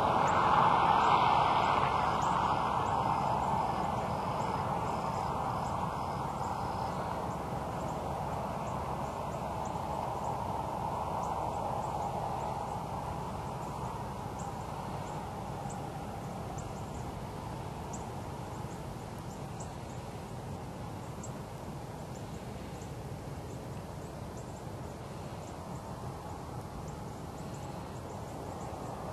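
Outdoor background with the noise of a passing engine fading away over the first few seconds, then a steady, quieter rural hush with faint high ticks and a brief run of faint, evenly spaced high peeps.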